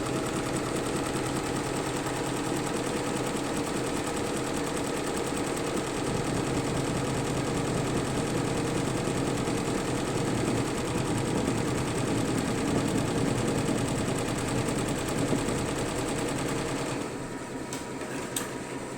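Single-head, 15-needle Fuwei embroidery machine stitching at speed, a fast, even chatter of needle strokes. About seventeen seconds in it drops to a quieter steady hum with a couple of sharp clicks.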